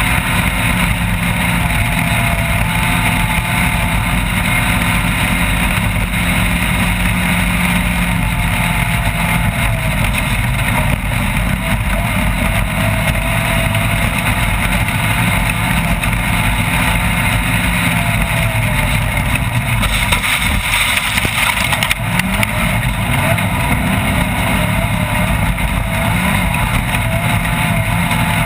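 Off-road race vehicle's engine running hard and steadily under a constant rush of noise. The engine note wavers, briefly breaks up about two-thirds of the way through, then climbs again.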